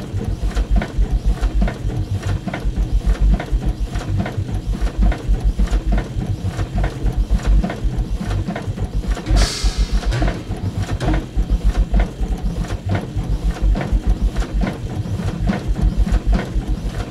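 Experimental music built from looped printing-press and machinery sounds: a fast, even pulse of low thuds with sharp mechanical clicks layered over it, and a brief hissing swell a little past the middle.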